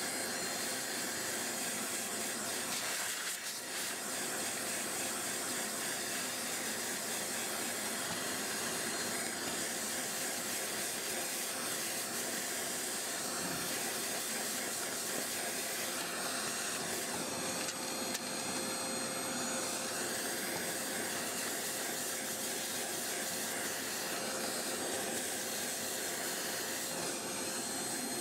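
Vacuum cleaner running steadily, its nozzle sucking dust out of the fins of a Pentium D CPU heatsink: a steady rush of air with a thin whine over it, dipping briefly about three seconds in.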